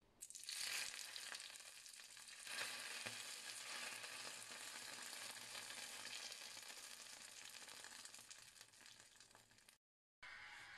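Hot oil sizzling, swelling about half a second in and again near two and a half seconds, then slowly dying down before it cuts off near the end.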